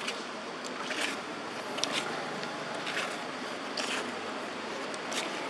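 Steady outdoor background hiss with a scattered handful of short, sharp rustles and clicks, roughly one a second.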